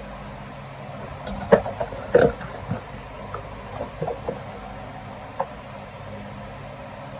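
Sharp clicks and light knocks of a desoldering iron and small metal parts handled at a soldering bench, the two loudest about one and a half and two seconds in, then a few lighter ones, over a steady low electrical hum.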